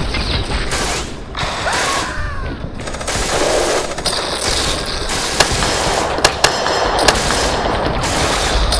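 Battle sound effects of machine-gun and rifle fire, dense and continuous, with a few sharper single cracks in the second half.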